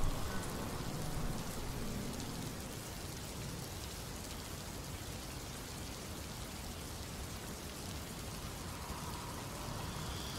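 Steady rain falling, an even hiss with no music over it.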